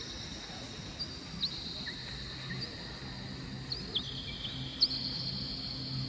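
Small birds chirping: short, sharp, falling calls every second or so, the loudest a little before the end, over a steady high-pitched trill and a faint low steady hum.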